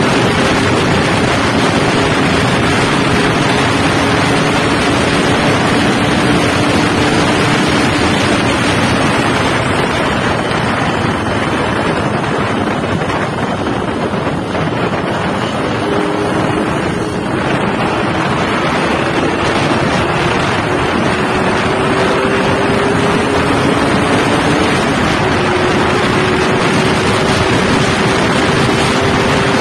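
Yamaha RX-King's 135 cc two-stroke single-cylinder engine running under way with its stock catalytic silencer, its pitch easing down through the first half and climbing again in the second half, under heavy wind noise on the microphone.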